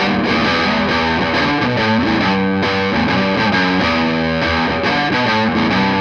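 Electric guitar played through a Laney Cub head, a small 15-watt EL84 valve amplifier, driven by an MXR GT-OD overdrive pedal: steady, distorted playing with sustained notes and several bends.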